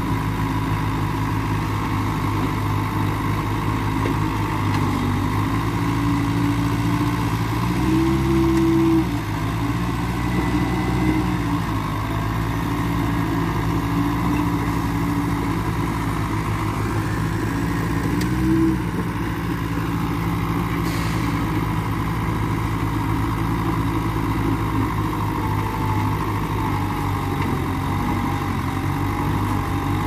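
Mitsubishi BD2E crawler bulldozer's diesel engine running under load as it pushes dirt. The engine note rises from about five seconds in, peaks briefly around the ninth second, stays raised until about eighteen seconds, then drops back to a steady lower run.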